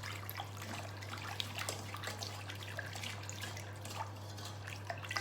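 A utensil stirring flour into chicken broth in a pot: small irregular liquid splashes and light clicks against the pot, over a steady low hum.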